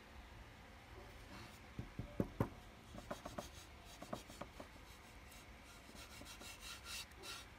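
Thin wooden slats being handled and slid against one another on a workbench: a few light wooden knocks and clicks about two seconds in, then a run of rubbing and scraping strokes near the end.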